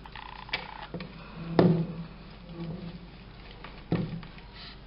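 Hands and a wooden rolling pin working dough on a wooden pastry board: soft rubbing and handling, broken by a few sharp wooden knocks. The loudest knock comes about a second and a half in, and another just before four seconds.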